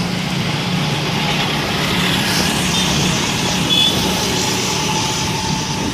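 Road traffic: a heavy vehicle's engine running steadily with road noise, plus a few brief high chirps about two to four seconds in.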